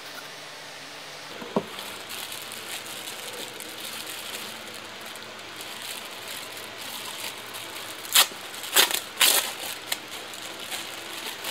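Clear plastic packaging crinkling and crackling as a t-shirt sealed in it is lifted and handled, with a few loud crackles about eight to nine seconds in, over a steady hiss.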